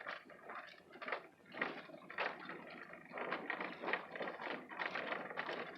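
Irregular clattering and crunching from a vehicle bumping along a rough dirt logging road, a jumble of short knocks and rattles with no steady rhythm.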